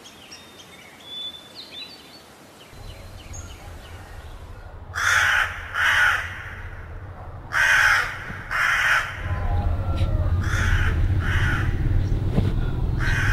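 A crow cawing in pairs, two harsh caws about a second apart, repeated four times. A low steady hum runs underneath and grows louder about two-thirds of the way in, and a few faint bird chirps come before the first caws.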